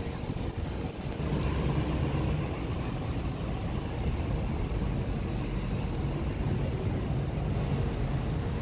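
Low rumble of vehicle engines on a street: an ambulance pulling away and a minivan moving off close by, growing louder about a second and a half in.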